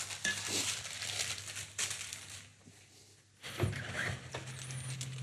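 Sliced onions sweating in butter in a stainless-steel pan, a soft sizzle with the rustle and scrape of a plastic slotted spatula stirring them. About three and a half seconds in there is a knock, and a low steady hum starts.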